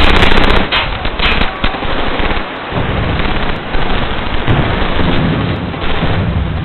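Battle sound effects: explosions and rapid gunfire, a dense burst of cracks and blasts in the first second and a half, then a continuing rumble with scattered shots.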